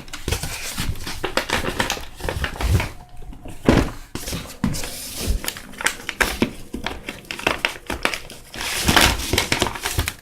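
Firework cakes and their packaging being handled: irregular crinkling, rustling and light knocks, growing denser and louder near the end.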